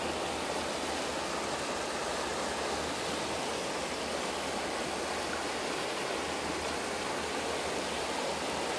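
River water flowing, a steady, even rush with no breaks.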